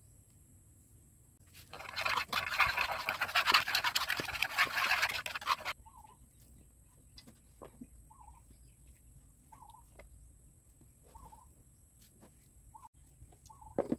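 Scratchy rustling of a dry flour-and-spice mix being stirred in a plastic tub, lasting about four seconds. After it, a bird gives short chirps about every second and a half.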